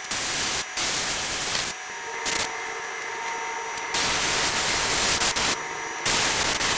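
Gravity-feed airbrush spraying paint in short bursts of air hiss that start and stop sharply, about five in all, the longest about a second and a half.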